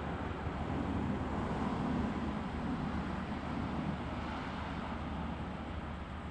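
Steady outdoor night ambience: an even low rumble and hiss that swells a little between about one and four seconds in.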